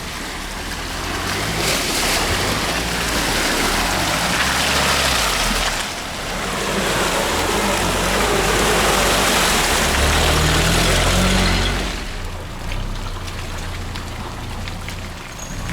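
Off-road 4x4 engine revving up and down while driving through mud and water, with a heavy rush of splashing and spraying that eases off about twelve seconds in.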